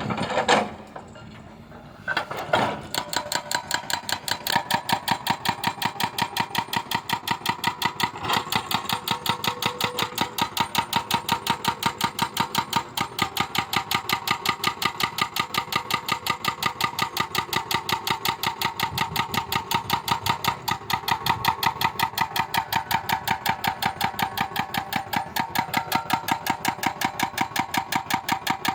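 An engine catching about two seconds in, then running steadily with an even, slow beat of about five pulses a second.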